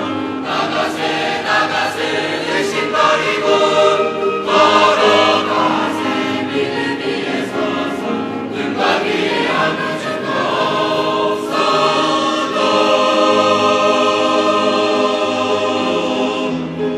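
Church choir of mixed young voices singing in harmony, ending on a long held chord that cuts off near the end.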